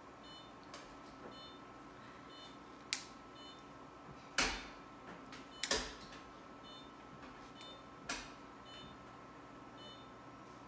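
Dog nail clippers cutting through a dog's toenails: four sharp snips a second or two apart, the loudest two in the middle.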